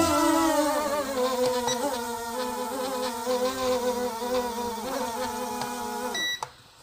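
Small 820-size brushed drone motors on a foam RC plane spinning their propellers with a steady buzzing whine. The pitch slides slowly lower, and the sound cuts off suddenly about six seconds in. The plane is held nose-down, and its gyro, calibrated nose-down, keeps the motors from shutting off.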